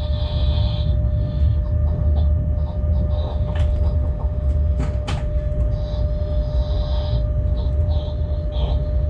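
Locomotive cab while running light on its own: a steady low rumble with a constant hum. Patches of high hissing come and go, and a few sharp clicks fall about halfway through.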